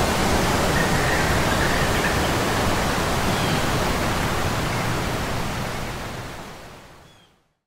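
Steady wind blowing on an open grassy hillside, with heavy low rumble from the wind buffeting the microphone; it fades out near the end.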